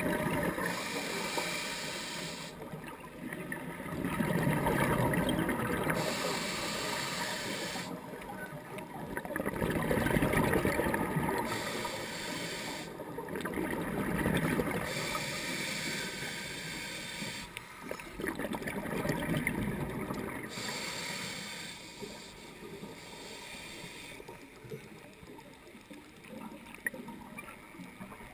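Scuba breathing through a demand regulator. A hiss on each inhale alternates with a rumble of exhaled bubbles, about one breath every five seconds, fading somewhat toward the end.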